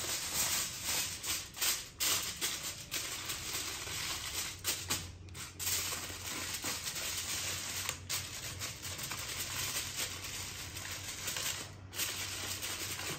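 Aluminium foil crinkling and rustling continuously as it is folded and pressed down over a baking tray, with a few brief pauses.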